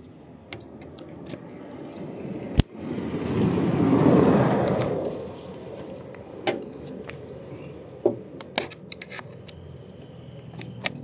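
Car door lock assembly being worked out of the door by hand, with one sharp click, then a scraping, rustling swell of parts sliding past each other, then a few scattered clicks.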